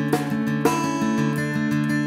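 Background music on acoustic guitar, picked notes left ringing, with a fresh pluck every half second or so.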